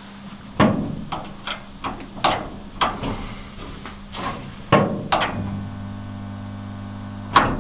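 A portable resistance spot welder's tong arms click and knock as they are clamped onto the panel. About five seconds in, the welder's transformer buzzes steadily for about two seconds and then stops with a sharp clack. The weld does not take, which the welder suspects is down to zinc primer or to the panel touching the rest of the car.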